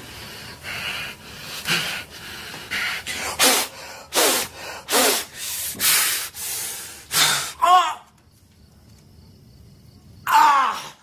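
A man breathing hard in quick gasps, some of them voiced as groans, then after a quiet pause of about two seconds a loud cry near the end.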